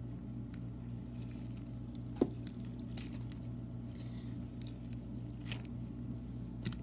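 Slime being squished and stretched by hand, with scattered small clicks and pops and one sharper pop about two seconds in, over a steady low hum.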